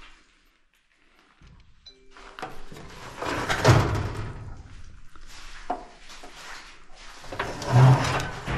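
Knocks and scrapes of hard things being handled and moved, with quieter rustling between, and two louder clatters about three and a half and eight seconds in.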